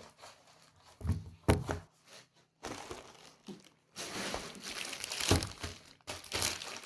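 Packaging crinkling and rustling as it is handled and opened, with a few sharper knocks, the loudest about one and a half seconds in and another just past five seconds.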